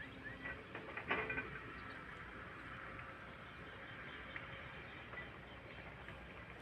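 Wind rumbling on the microphone, with a brief knock about a second in and faint bird chirps.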